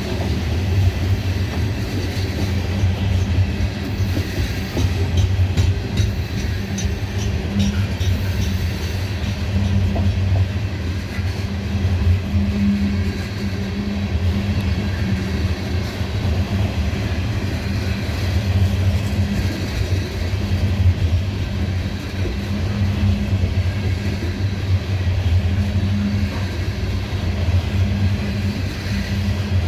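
Loaded coal hopper cars of a CSX freight train rolling past: a steady heavy rumble of steel wheels on rail, with a few sharp clicks about four to eight seconds in.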